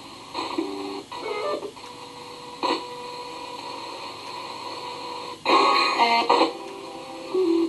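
Spirit box sweeping through radio stations: steady static hiss broken by short, chopped snatches of broadcast sound, with a louder cluster of fragments about five and a half seconds in.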